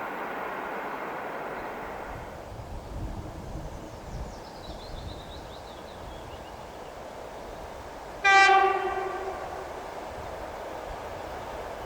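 A train horn sounds one short blast about eight seconds in, a single steady note with many overtones that sets in suddenly and dies away within about a second. Beneath it is the low rumble of a train on the line.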